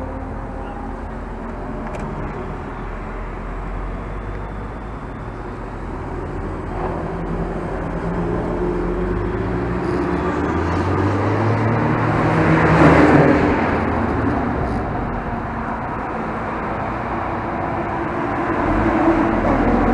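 Mazda MX-5 engine under hard acceleration on a race track, with a steady rush of wind and road noise. The engine note climbs in pitch through the middle, is loudest about thirteen seconds in, then eases off.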